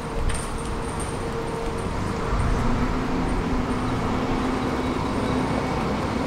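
Road traffic noise with a vehicle engine running; a low engine hum comes up about two seconds in and holds steady.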